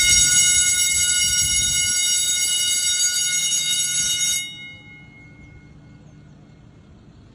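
School bell ringing loudly and steadily, then stopping sharply about four and a half seconds in, with a short ring-out over faint room noise.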